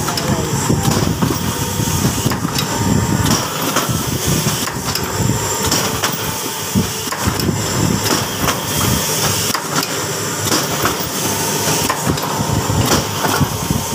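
Automatic soap-wrapping machinery running: a steady mechanical din with frequent, irregular knocks and clacks.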